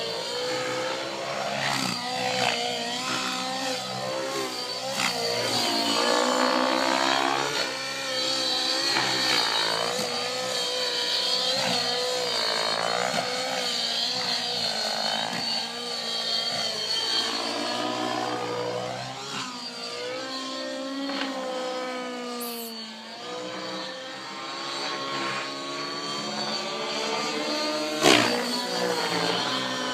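Align T-Rex 700N nitro RC helicopter's glow engine and rotor blades in aerobatic flight, the pitch sweeping up and down again and again as it manoeuvres. A sharp knock near the end.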